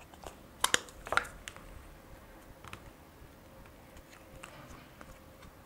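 Plastic Play-Doh tub being opened: a few sharp clicks about a second in as the lid comes off, then faint handling sounds as the dough is pulled out.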